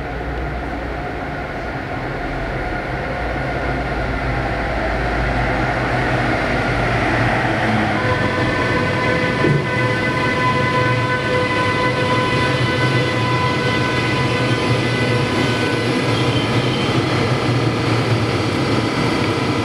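DB Class 101 electric locomotive hauling a passenger train, rolling in and slowing to a stop, getting louder as it approaches. The wheels and train give a steady rumble, and from about eight seconds in a set of steady whining tones joins them and holds for several seconds.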